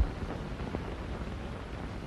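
Steady hiss and low rumble of an old film soundtrack with no dialogue or music, and one faint click about three quarters of a second in.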